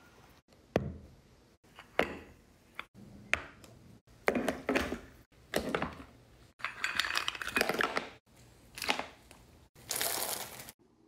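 A quick succession of short kitchen handling sounds, each about a second long and cut off abruptly: sharp knocks and clatter of shellfish against a wooden board and a pot, with cracking and crunching.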